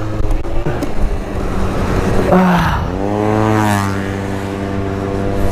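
MBK Booster 50cc two-stroke scooter engine running at speed. About three seconds in it revs up and then holds a steady high note.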